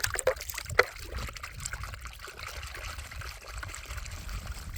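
Chicken patties sizzling in a cast iron pan over a campfire, with a few sharp crackles in the first second.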